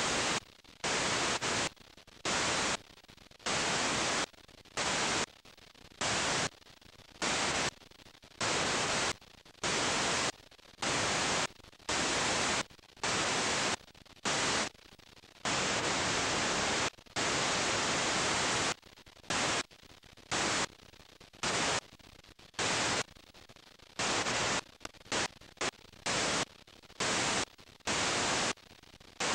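Static hiss from a blank stretch of old videotape. It cuts in and out abruptly in uneven bursts of under a second to about two seconds, with quieter gaps between.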